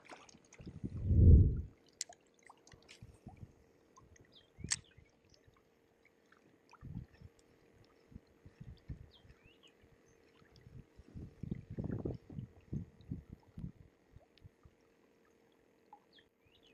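Irregular low thumps and knocks of a kayak hull rocking on the water, with some water splashing against it. The loudest thump comes about a second in, and a cluster of knocks follows near the end.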